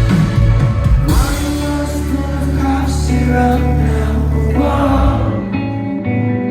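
Live rock band playing with vocals. A cymbal crash comes about a second in, a low chord is held for several seconds, and near the end the sound thins to picked guitar notes.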